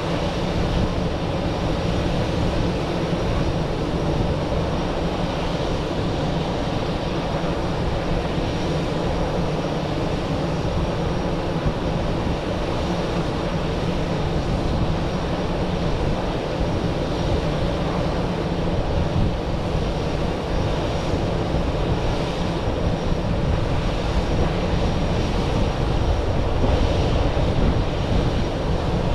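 Airbus A319-111 jet engines (CFM56) running steadily, a loud continuous drone with steady hum tones, growing slightly louder near the end.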